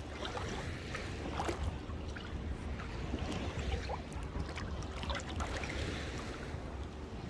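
Shallow sea water lapping and splashing around bare feet wading through small waves at the shoreline, with a steady low rumble beneath.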